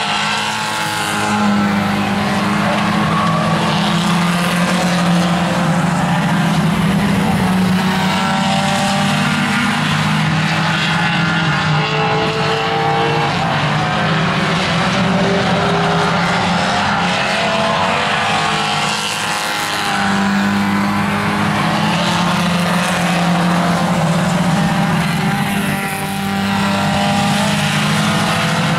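Several compact tuner-class race cars running hard around an oval track, their engines held at high revs in a continuous, overlapping drone that swells and eases a little as the cars pass.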